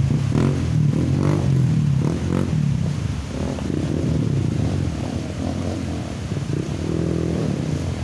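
Dirt bike engine running at low revs as the bike is worked through a shallow river, strongest in the first few seconds, over the rush of flowing water.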